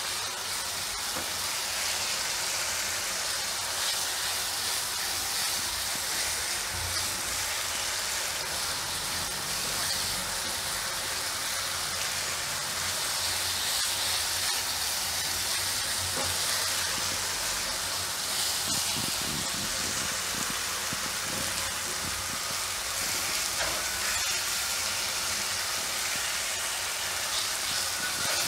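Onion-puree masala with ginger, green chillies and garlic frying in oil in a nonstick kadai, a steady sizzle, stirred and scraped with a silicone spatula. The paste is being cooked in the oil until done.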